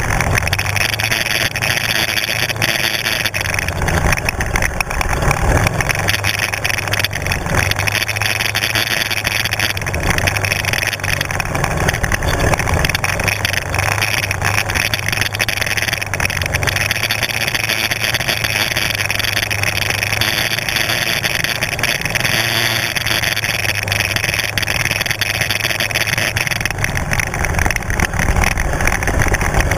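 Kymco 250 sport quad's engine running steadily while riding along a rutted dirt track, heard close up from a camera mounted on the quad, mixed with the rushing noise and rattle of the ride.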